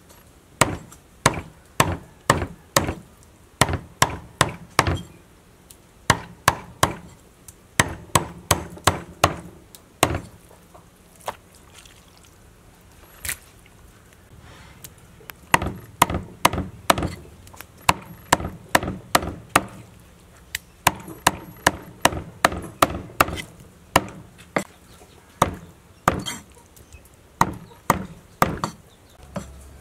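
Cleaver chopping raw beef on a thick round wooden chopping block: sharp chops in quick runs, often two or three a second, with a short lull midway.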